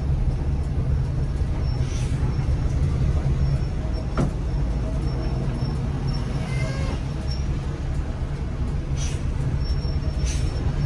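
Hino R260 coach's diesel engine running with a steady low drone, with one sharp click about four seconds in.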